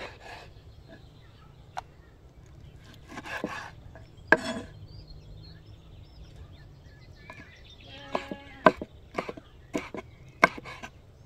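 Chef's knife cutting lamb heart on a wooden chopping board. A few separate sharp knocks of the blade on the board, then a quicker run of chops in the last few seconds.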